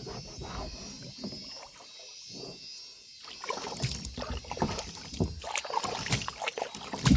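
Irregular water splashing and sloshing, with a quieter lull about two seconds in before the splashes pick up again.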